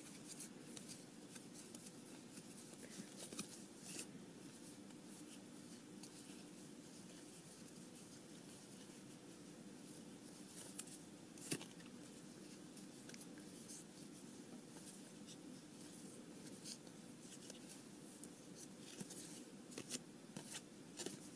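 Trading cards being thumbed through and slid against one another by hand: faint, irregular soft clicks and scratchy slides, with one sharper click about halfway, over a low steady hum.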